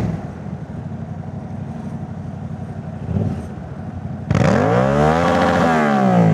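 Yamaha MT-07's 689 cc parallel-twin through a Jeskap full aftermarket exhaust, running low and steady, then revving up suddenly and loudly about four seconds in before the revs fall back. The exhaust is loud on the throttle, and its silencer has fresh packing wool.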